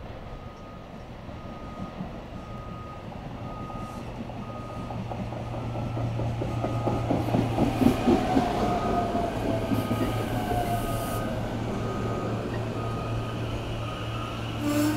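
SEPTA electric multiple-unit passenger train pulling into the station and slowing to a stop. Its low electrical hum and wheel noise grow louder and peak about eight seconds in, and a motor whine falls in pitch as it brakes. A high electronic ding repeats about twice a second throughout.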